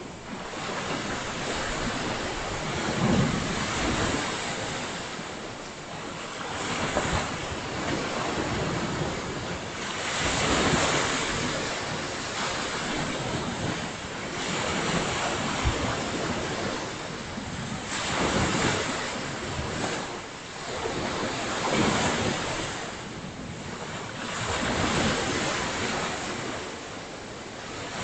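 Ocean waves breaking and washing up a beach, surging and easing every few seconds, with wind on the microphone.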